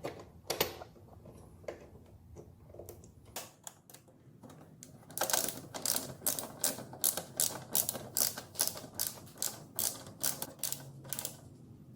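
Ratcheting socket wrench clicking in quick strokes as it tightens a mounting bolt, with a few scattered metal clicks at first and then a steady run of about four sharp clicks a second for most of the second half.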